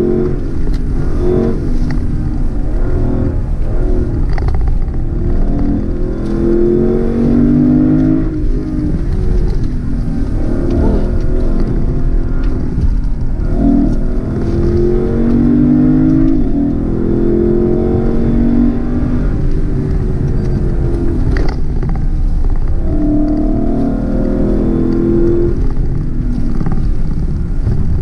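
Lexus LC500's 5.0-litre naturally aspirated V8, heard from inside the cabin under hard acceleration. The engine note rises in repeated pulls and drops back between them, over a steady low rumble of road noise.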